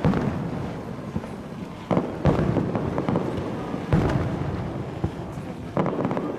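New Year's fireworks display: aerial shells bursting with sharp bangs, five in all, a second or two apart, each followed by a rolling rumble.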